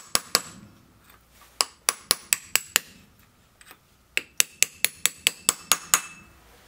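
Hammer tapping a flat punch held against the clutch hub nut inside a Yamaha XT600 clutch basket: sharp metal-on-metal strikes, about five a second, in three quick runs with short pauses between.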